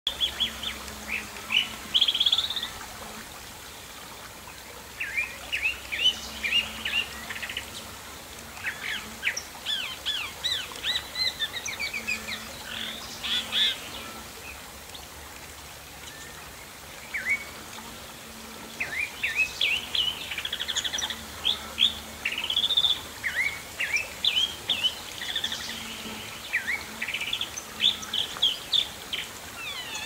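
Chalk-browed mockingbird (sabiá-do-campo) singing: a long, varied song of quick chirps and whistled notes delivered in rapid phrases, with brief lulls about four seconds in and again about halfway through.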